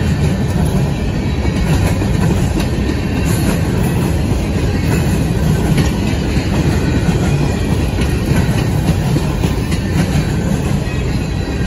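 Covered steel coil cars of a slow CSX freight train rolling past on the rails: a steady rumble of wheels on track with scattered faint clicks.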